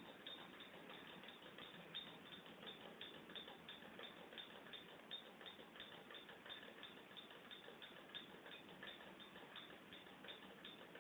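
A spoon stirring milk tea in a glass, clinking faintly against the glass several times a second.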